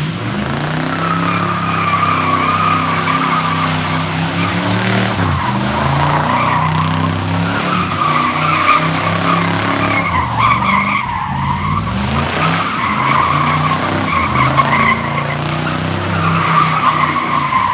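A car doing a burnout: the engine is held at high revs while the tyres squeal continuously. The engine note dips and climbs again a few times.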